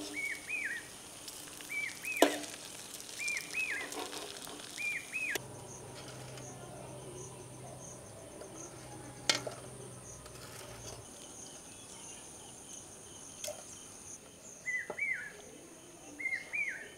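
Oil sizzling faintly in a flat iron pan, with a steel spatula or skimmer clinking sharply against the pan a few times, loudest about two seconds in. A bird gives a short hooked chirp about once a second at the start and again near the end, and a faint high insect trill runs through the middle.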